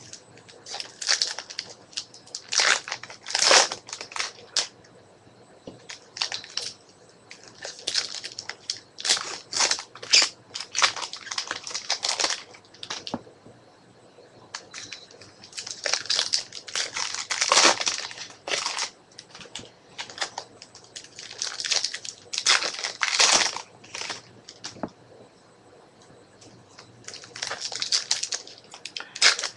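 Trading card pack wrappers being torn open and crinkled by hand, with cards handled and slid out, in irregular clusters of rustling a few seconds apart.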